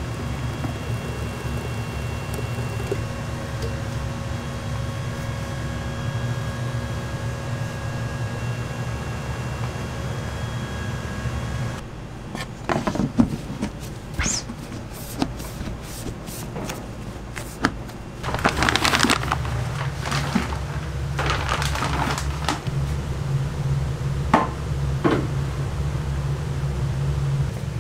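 A machine hums steadily at first. After about twelve seconds come sharp clicks and knocks from a plastic food container's lid being pressed on, then rustling of plastic bag liners in buckets with more knocks, over a low hum.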